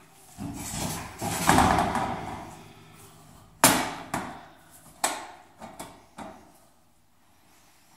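Sheet-metal stove pipe being wrestled into place. First comes a stretch of scraping and rattling, then one sharp clank about three and a half seconds in as the elbow knocks against the flue adapter, followed by a few lighter knocks.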